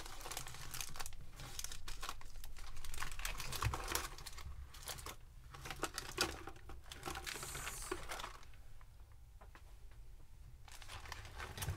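Plastic packaging crinkling and rustling with many small clicks and knocks as lures and bags are handled and cleared away, dying down to quieter handling over the last few seconds.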